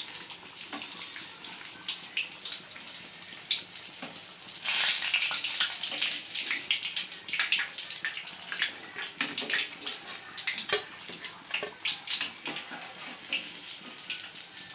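Battered green chillies deep-frying in hot oil: a steady sizzle with many small crackles, which swells louder for a second or so about five seconds in.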